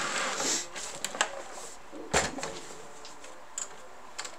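A 1963 Royal FP typewriter being handled and tipped up onto its side. A brief rubbing scrape at the start, a few light clicks, then one sharper knock about two seconds in and faint clicks near the end.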